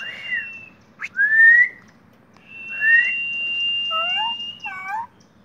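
Common myna whistling and calling: a long held whistle, a few short rising whistles, then a quick run of rising notes near the end.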